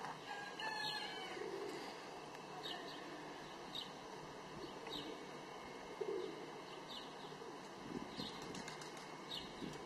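Birds chirping over a steady outdoor background: short high chirps about once a second, with a few soft low calls in between.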